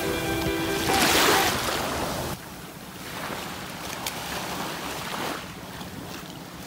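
Small waves washing up on a pebbly shore and swirling around wading feet, swelling and easing, louder in the first two seconds.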